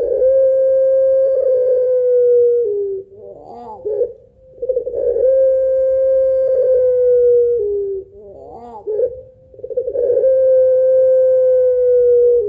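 Puter pelung, a long-voiced breed of Barbary dove, giving long drawn-out coos: three in all, each about three seconds long, held steady then sliding slightly lower and dropping a step at the end. Between the coos comes a short warbling trill, its 'laughing' call.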